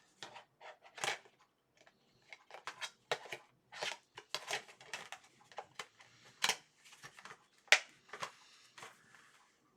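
Plastic DVD case being handled: a run of irregular clicks, snaps and rustles as the case and disc are moved and turned over. Two sharper snaps come in the second half.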